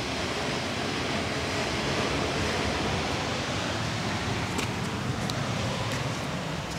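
Steady rush of ocean surf and wind, with a few small clicks from footsteps on the dry dirt trail starting about four and a half seconds in.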